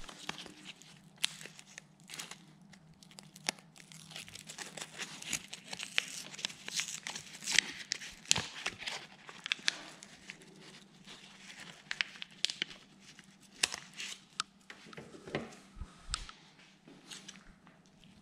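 Paper sleeve of a Plastigauge measuring strip being crinkled and torn open by hand, with irregular rustling and many sharp clicks and crackles.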